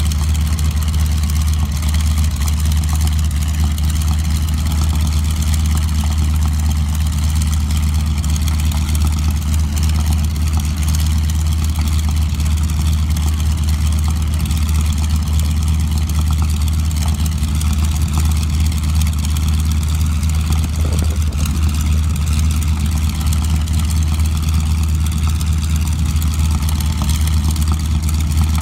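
The nine-cylinder Pratt & Whitney R-1340 radial engine of a North American SNJ Texan trainer running steadily at low power, a deep, even drone with no change in pitch.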